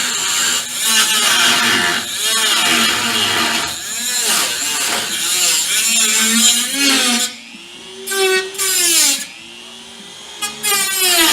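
Handheld rotary tool (Dremel) cutting into sheet-metal body panel, its high whine wavering as it bites. Twice in the last few seconds it comes off the cut, and the motor's pitch rises and falls as it spins freely.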